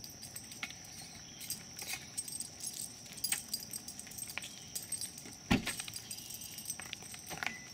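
Metallic jingling and clinking, like keys or dog-collar tags, with one heavy thump about five and a half seconds in. A steady high insect buzz runs underneath.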